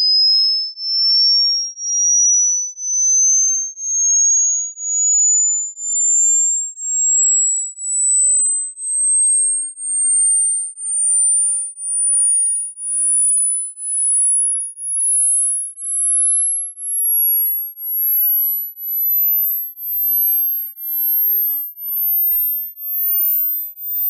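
A pure sine test tone sweeping slowly and steadily upward in pitch, from a high whistle to a very high, thin whine near the top of human hearing, swelling and dipping in loudness about once a second. It is a hearing-test sweep: the highest pitches are the first to fade out as ears age.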